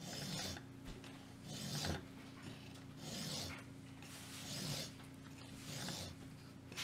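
Hand file rasping across a mild steel pommel, cutting decorative grooves: slow, even strokes, about five of them, roughly one every second and a half.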